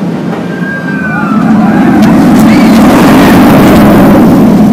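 Roller coaster train running past on its track, a loud rushing rumble that builds about a second and a half in and stays loud, with a few high gliding tones over it.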